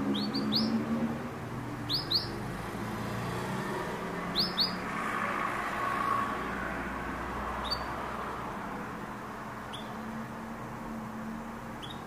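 Domestic canary giving short, upward-sweeping chirp calls: two or three quick notes together three times in the first five seconds, then single, fainter chirps about every two seconds, over a steady background hum.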